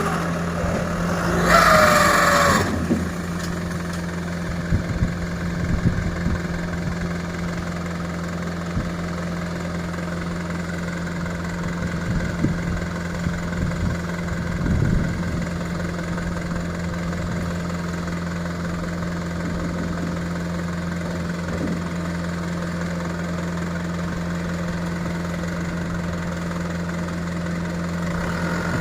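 A heavy-equipment diesel engine idling steadily with a low hum. A brief rising-and-falling whine comes about two seconds in, and a few short knocks are scattered through the middle.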